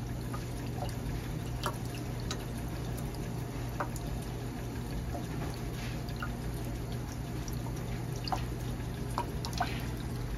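Water trickling and dripping in a water filter machine left running to purge air from its freshly fitted filter, with scattered small drips over a steady low hum.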